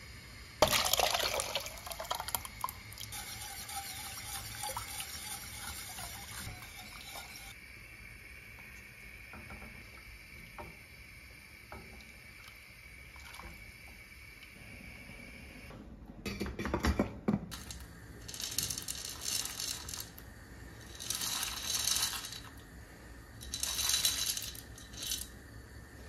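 Liquid poured from a glass measuring jug into a steel pot of tomato sauce: a splashing pour that starts about half a second in and runs for about seven seconds. Later there is a louder clatter, then several short rustling bursts.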